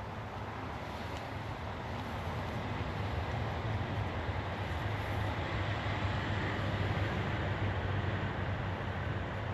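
A distant low rumble of motor traffic, swelling slowly to its loudest near the end and then easing off a little.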